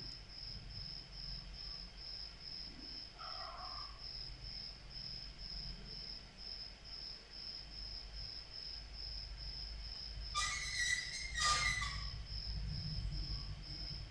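A cricket chirping steadily, a high pulsing trill about three times a second, with two brief louder noises about ten and eleven and a half seconds in.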